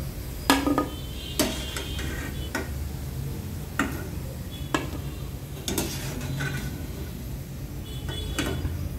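Perforated metal skimmer clinking against an aluminium kadhai and a plate as fried vadas are lifted out of hot oil. About seven sharp, irregularly spaced clinks sound over a low steady hum.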